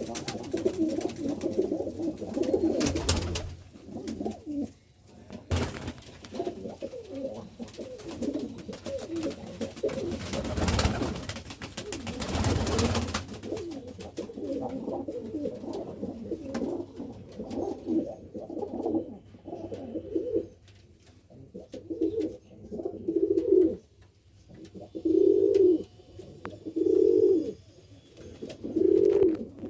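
Domestic pigeons cooing, low rolling coos overlapping through most of the stretch, with a few short rushing noises in the first half. Near the end the cooing turns into separate, louder coos about two seconds apart.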